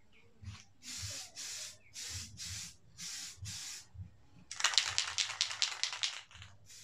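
Aerosol spray can giving a series of short spray bursts, each about a third of a second long. About four and a half seconds in, a louder stretch of rapid clicking and hiss lasts over a second.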